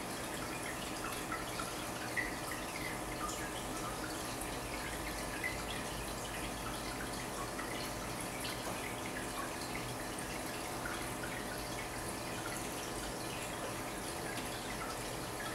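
Home aquarium's water circulation: a steady pump hum under constant trickling and dripping water, with a few slightly louder drips in the first six seconds.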